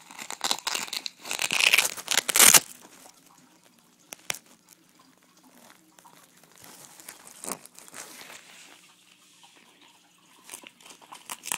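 Scratchy rustling of a fabric vest and a hook-and-loop patch being handled and pressed on, loudest for the first two and a half seconds, then scattered light rustles and clicks.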